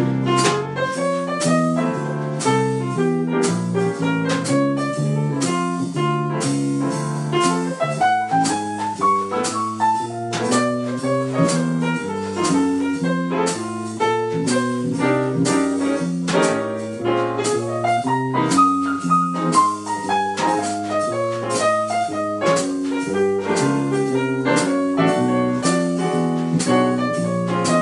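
Instrumental jazz break: a piano solo over bass and a drum kit keeping time, with no singing.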